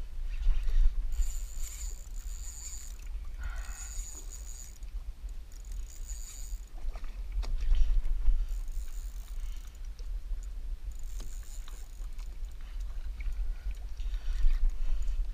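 Sounds aboard a small fishing boat at sea: a steady low rumble of wind and water, broken by short high hissing bursts every two seconds or so.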